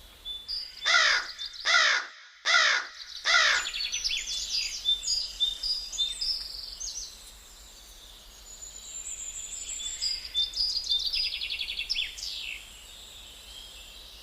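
A crow cawing four times in quick succession, followed by smaller birds chirping and twittering for several seconds.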